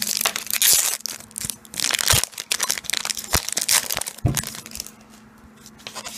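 Crinkling and rustling of foil Pokémon booster-pack wrappers handled close to the microphone, with a few sharp knocks. It dies down after about four seconds.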